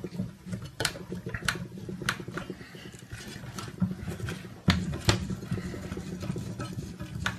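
Scattered light clicks and knocks from hands handling the parts of an acrylic-framed 3D printer, around its bed plate and end switch, over a steady low hum.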